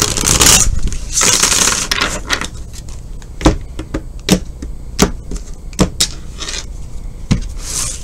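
A deck of tarot cards being shuffled: two rustling runs in the first couple of seconds, then five sharp card taps spread over the next few seconds, and a brief rustle near the end.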